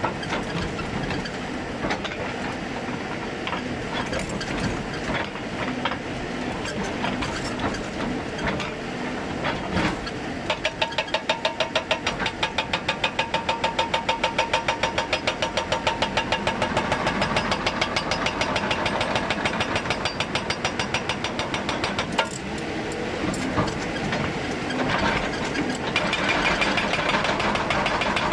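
Hydraulic breaker on a Hyundai 290 excavator, over the machine's diesel engine. Irregular knocks and clatter at first; about ten seconds in, the breaker starts a rapid, even hammering of around five to six blows a second that lasts about twelve seconds.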